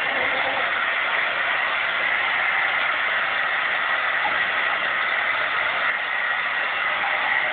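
Hair dryer running steadily: an even, unbroken rush of blown air.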